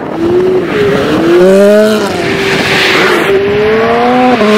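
Ferrari F430 Spider's 4.3-litre V8 accelerating hard. Its pitch climbs twice, and it shifts gear near the end, dropping to a lower pitch.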